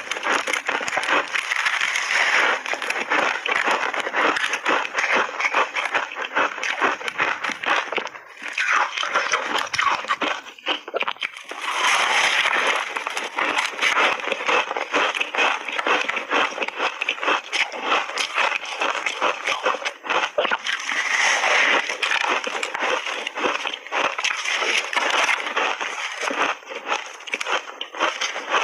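A person chewing a crunchy layered ice cake with big bites, a dense, continuous run of crackling crunches with a short lull about a third of the way through.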